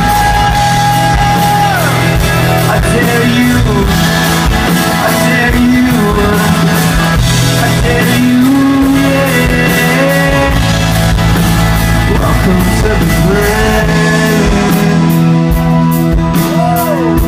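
Live rock band playing loud through a concert PA, with guitars, bass, drums and wordless singing.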